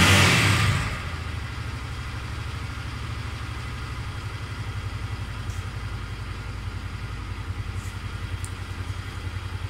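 V-twin cruiser motorcycle engine dropping back from a brief throttle blip in the first second, then idling steadily with an even low pulse.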